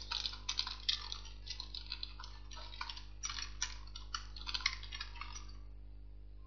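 Typing on a computer keyboard: a quick, uneven run of key clicks that stops about five and a half seconds in.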